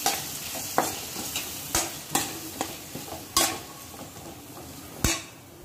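Spatula stirring thick ground chickpea paste into frying masala in a kadai, scraping and knocking against the pan about seven times, the loudest knocks about three and a half and five seconds in. A sizzle runs under it and fades near the end.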